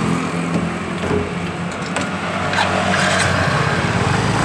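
A motor vehicle's engine running steadily close by, with a few light clicks about two to three seconds in.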